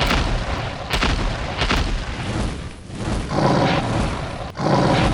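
Repeated loud explosion-like booms, each starting with a sharp crack and rumbling on, one about every second.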